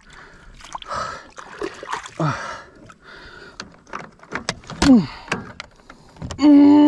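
Knocks, clatter and water movement from a small boat as the angler struggles with a hooked snakehead, with short falling grunts from the man and a loud, drawn-out vocal groan near the end.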